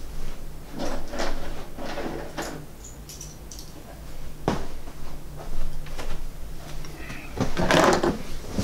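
Hands handling and setting down objects: a series of bumps, scrapes and knocks, with a sharp click about halfway and a louder clatter near the end, over a faint steady hum.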